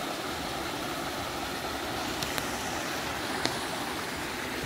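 A small, narrow waterfall rushing steadily into a pool, with a few faint clicks a couple of seconds in.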